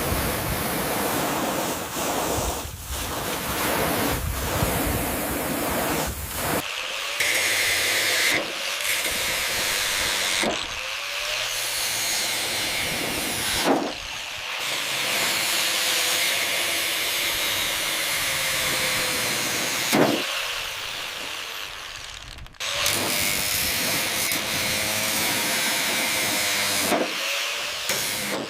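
Power tools at work, a steady hissing noise with a motor's whine that dips and rises, in a run of short clips that change abruptly every few seconds.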